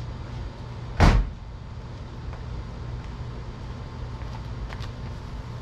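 1971 Oldsmobile Cutlass Supreme's V8 idling steadily, running well after its Quadrajet carburetor was rebuilt and tuned. About a second in, a car door is slammed shut once.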